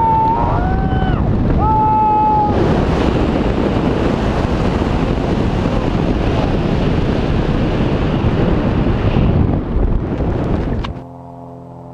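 Wind rushing across the camera microphone during a tandem parachute descent under an open canopy, loud and steady. A few high whoops from a voice come in the first two seconds, and about eleven seconds in the wind noise cuts off suddenly as music begins.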